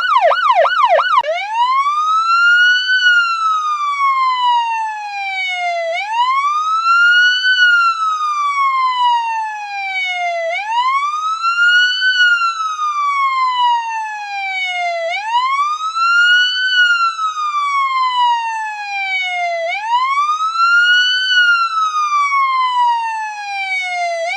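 Police car siren in a fast yelp for about the first second, then switching to a slow wail that rises and falls about every four and a half seconds, five times over, before cutting off at the end.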